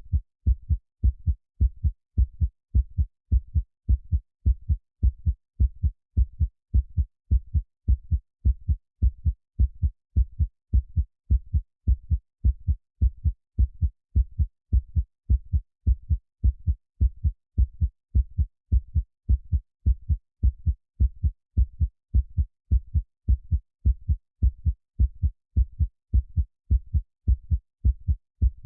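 Heartbeat sound: a steady, even rhythm of low double thumps (lub-dub) that keeps the same pace and loudness throughout.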